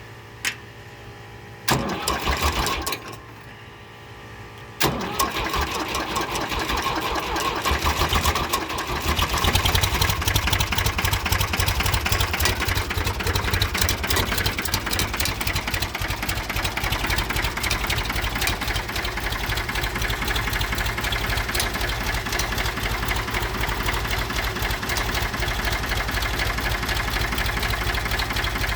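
Old Ford 4500 backhoe engine being cold-started in below-freezing air. It catches sharply about five seconds in, picks up speed as it is given gas until about nine seconds, then runs steadily with a rhythmic beat.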